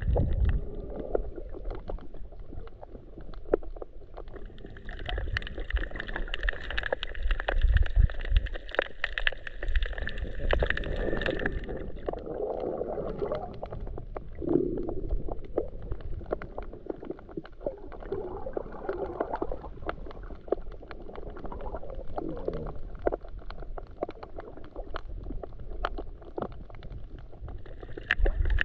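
Underwater sound picked up through a GoPro's waterproof housing while snorkeling: muffled gurgling and sloshing water with many scattered small clicks. A few deeper rumbles swell up, the strongest around the start and about eight seconds in.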